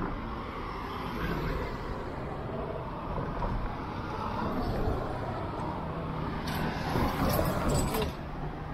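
Downtown street traffic: cars passing with a steady low rumble of engines and tyres, and a few short hissy sounds about seven seconds in.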